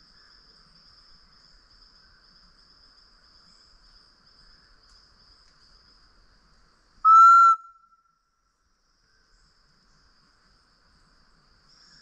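One short whistled note blown on a pé de cabra tinamou call, used as a lure for the solitary tinamou (macuco). It rises slightly, then holds, about half a second long. Beneath it is a faint steady insect buzz that drops away just after the whistle.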